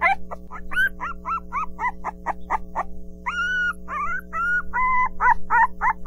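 Puppy yipping and whining: a quick run of short, high yips, about four a second, then longer whines from about three seconds in.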